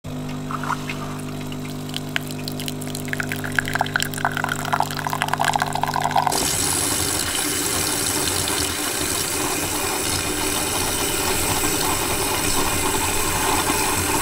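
DeLonghi PrimaDonna Class bean-to-cup coffee machine at work: a steady mechanical hum with scattered crackles and clicks for about six seconds. It then switches abruptly to a loud, steady hiss as the milk system froths and dispenses milk into the glass.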